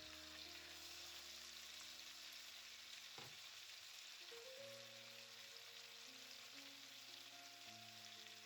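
Faint, steady sizzle of chicken pieces frying in butter and oil in a pan.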